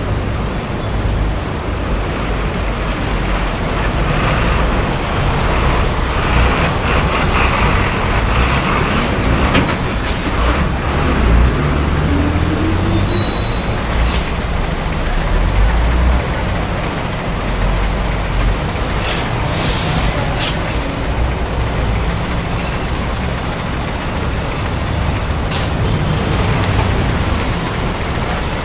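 City street traffic: a steady rumble of passing vehicles, with several short, sharp high hisses and a brief chirping squeal about twelve seconds in.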